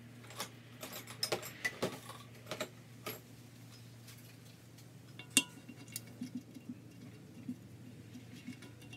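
Light clicks and clinks of small metal parts of a disassembled Volkswagen 1600 engine being handled on a workbench. They are busiest in the first three seconds, with one sharp click about five and a half seconds in and a few softer taps after, over a steady low hum.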